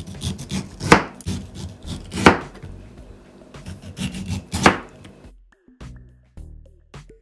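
Chef's knife slicing through a boiled bamboo shoot on a cutting board: light cutting clicks with three loud knife strikes on the board in the first five seconds. The chopping stops about five seconds in.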